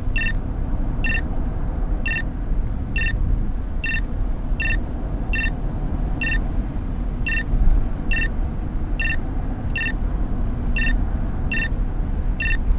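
Short electronic beeps repeating evenly about once a second, over the steady low rumble of a car driving on the road.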